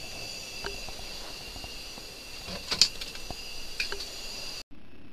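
A few sharp clicks and knocks of hands handling gear, the loudest about three seconds in, over a steady high-pitched whine. The sound cuts out for a moment near the end.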